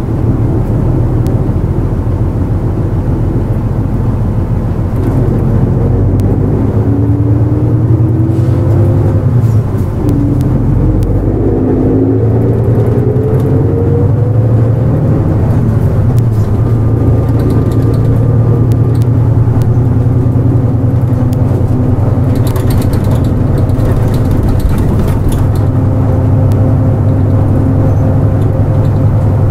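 Nissan Diesel KL-JP252NAN city bus under way: diesel engine running with a whine that rises in pitch as it accelerates, broken by a short dip about ten seconds in, like a gear change, then rising again. It settles to a steady run for the second half.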